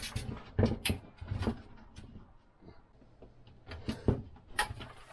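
Scattered light clicks and knocks of small PC mounting hardware being handled and set against the case, in two clusters: one in the first second and a half, and another about four seconds in.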